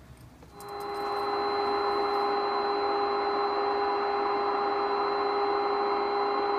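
A small electric motor starts up about half a second in and runs steadily, a whirring rush with a constant hum in it.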